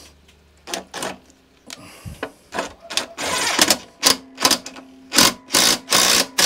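DeWalt cordless impact driver running a bolt into a lawnmower exhaust guard in a string of about ten short trigger bursts, with one longer run a little over three seconds in.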